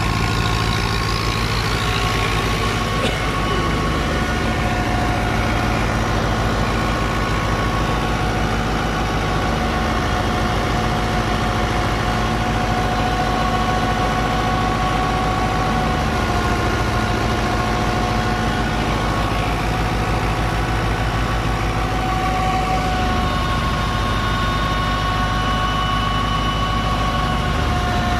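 New Holland Fiat 640 tractor's diesel engine running steadily at working speed, driving a Dogar wheat thresher as wheat is fed into it. A steady whine of a few high tones sits over the engine's rumble.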